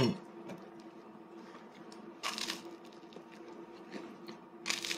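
Quiet crackle of crisp bread pieces being picked at and handled on a plastic plate, with two brief crunchy rustles and a few small clicks over a faint steady hum.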